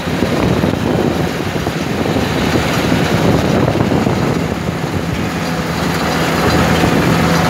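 Combine harvester running steadily under way, its engine giving a constant drone with a steady low hum, a little louder near the end.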